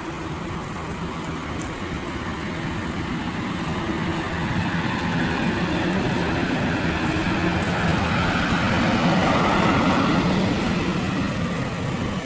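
Boeing 737 jet engines at takeoff power as the airliner accelerates down the runway, a steady roar that grows louder as it approaches and passes, loudest about eight to ten seconds in.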